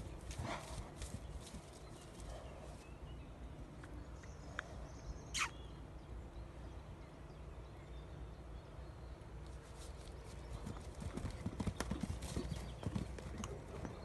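Hoofbeats of a Paint stallion moving around on sand arena footing, thudding irregularly and growing louder and busier from about ten seconds in as he bucks and rears. There is a single sharp snap about five seconds in.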